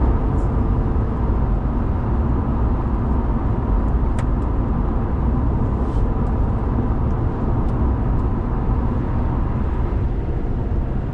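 Road and tyre noise inside a Ford Crown Victoria's cabin at highway speed: a steady, loud low rumble.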